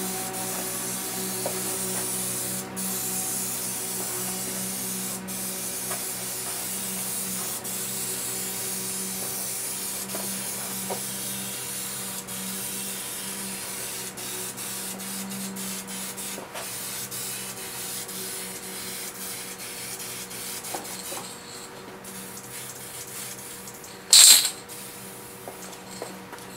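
Aerosol spray-paint can hissing as the last coat of base colour goes onto a car fender, in long passes broken by brief dips where the nozzle is let up. The spray thins out past the middle, and a short loud sound comes near the end.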